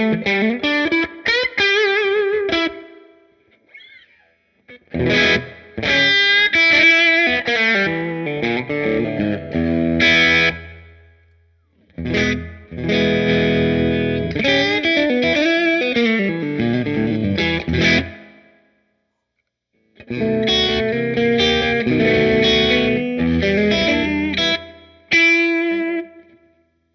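Overdriven electric guitar played through a Fender Blues Deluxe Reissue tube amp fitted with a Celestion Creamback G12M-65 speaker: lead phrases with string bends and vibrato, in four passages separated by short pauses.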